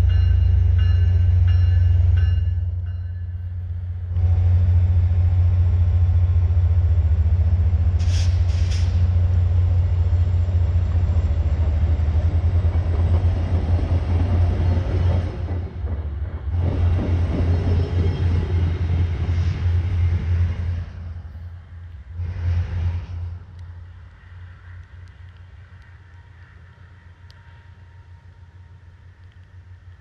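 VIA Rail passenger cars rolling past close by with a heavy rumble and rhythmic wheel clatter. The sound fades away after about twenty seconds as the end of the train goes by.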